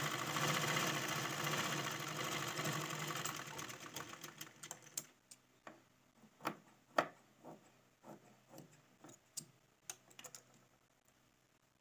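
Black domestic sewing machine running steadily as it stitches a seam. About four seconds in it slows and stops, followed by a scattered run of separate light clicks and knocks.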